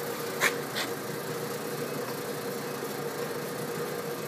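VDF engine lathe running, its spindle turning a bar while the carriage moves under power feed at a low feed rate: a steady machine hum with a constant whine. Two short, sharp noises come about half a second in and just under a second in.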